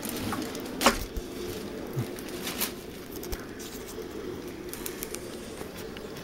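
A steady low hum with a few sharp knocks and clicks, the loudest about a second in.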